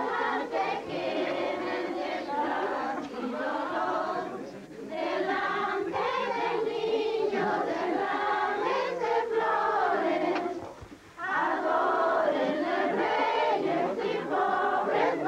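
A group of voices, mostly women's, singing a hymn together without accompaniment, with a short break between phrases about ten seconds in.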